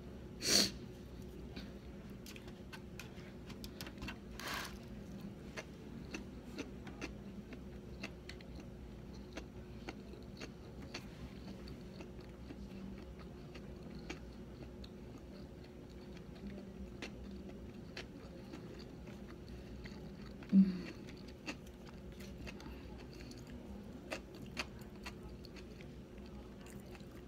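A person chewing sushi close to the microphone, with many small wet mouth clicks, over a faint steady hum. A few louder knocks stand out: a sharp one right at the start and the loudest about two-thirds of the way through.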